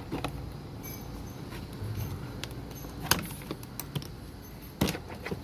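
Hard plastic trim and seat-belt hardware being handled and fitted, giving scattered light clicks and rattles, with two sharper snaps about three seconds in and near the end.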